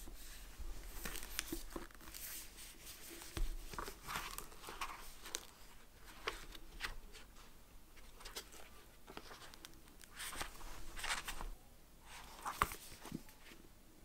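Paper pages of a small hardcover diary rustling as they are flipped and handled, in short irregular rustles with a few soft knocks as the book is moved on a stack of books.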